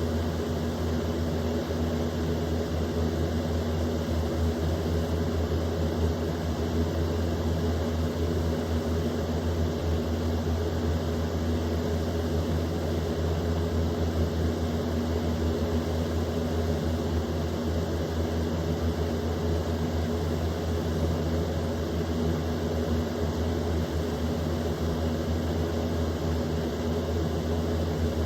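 Electric box fan running steadily on high speed: a constant rush of moving air over a low motor hum.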